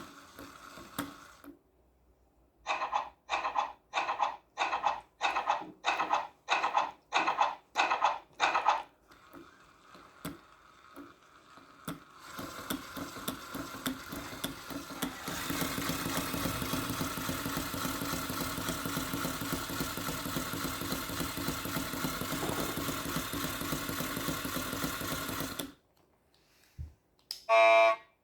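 Lego washing machine model's small electric motor running in short regular pulses, about two a second. After a pause it spins up to a steady whir that lasts about ten seconds, like a spin cycle. Near the end there is a short, loud electronic beep.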